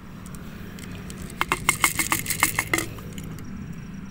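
Dry cat food rattling and clinking in a jar as it is shaken out onto paving: a quick run of about ten rattles about a second and a half in, over a steady low hum.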